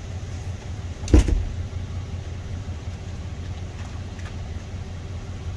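Steady low rumble of an idling vehicle engine, with a single loud thump about a second in.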